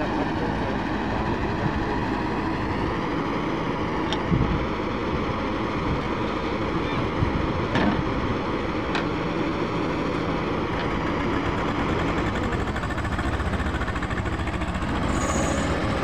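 JCB 3DX backhoe loader's diesel engine running steadily under load while the backhoe arm digs and swings a bucket of soil, with a few sharp metallic knocks from the arm and bucket, the loudest about four seconds in.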